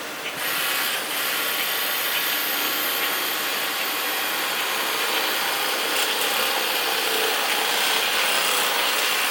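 Knife cutting through a catfish during filleting: a steady rasping, sawing noise with a faint high whine over it, starting abruptly about half a second in.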